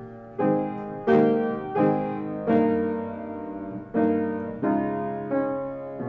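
Solo piano playing slow chords, each struck and left to ring and fade, about seven in all, with a longer pause a little past the middle.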